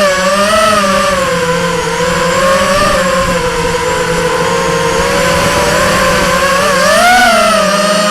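Multirotor drone's electric motors and propellers whining steadily, the pitch wavering with throttle and rising briefly near the end.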